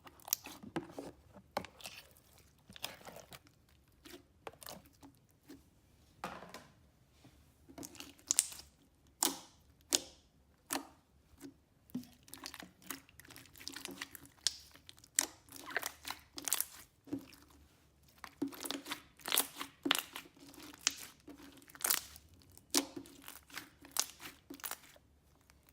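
Thick, glossy slime filled with foam beads being squeezed and kneaded by hand, giving irregular crunchy crackles and pops.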